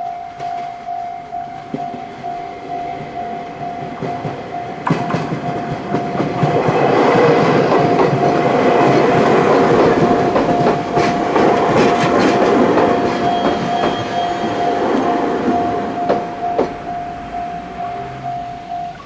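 Japanese level crossing alarm ringing in a steady rapid pulse while a train runs over the crossing, wheels clacking over the rail joints, loudest from about five seconds in and fading near the end. The alarm cuts off just as the train has passed.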